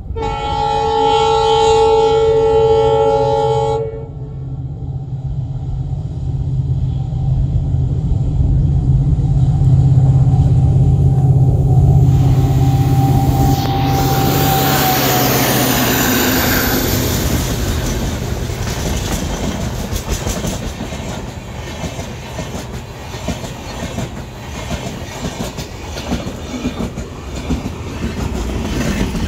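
WDP4D diesel locomotive sounds its multi-tone horn once for about four seconds, then its EMD two-stroke engine drones louder as it accelerates toward and past the listener. LHB passenger coaches follow, their wheels clattering in a clickety-clack over the rail joints.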